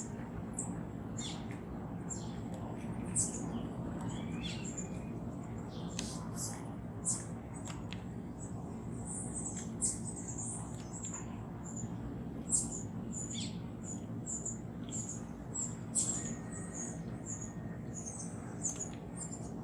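Small birds chirping: many short, high-pitched calls in quick, irregular succession, a few of them louder, over a steady low background rumble.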